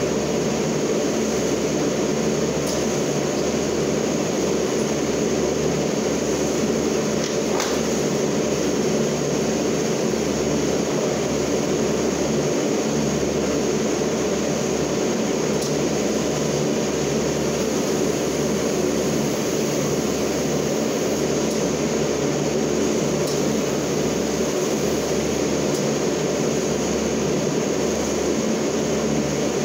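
Forklift running steadily, a constant low drone and hum with no change in pitch, and a faint click about seven to eight seconds in.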